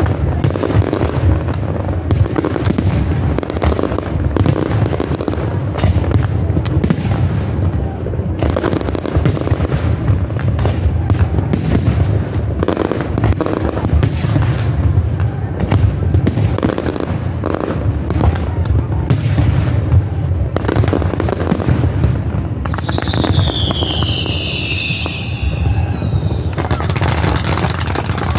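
Fireworks display: aerial shells bursting one after another in a dense run of booms and crackles over a continuous low rumble. About 23 seconds in, falling whistles sound for a few seconds.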